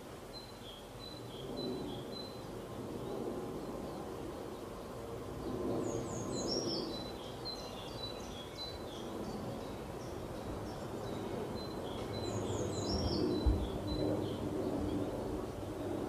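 Small birds singing in the background: a run of short high chirps in the first couple of seconds, then a quick falling phrase of notes about six seconds in and again about thirteen seconds in, over a steady low background rumble.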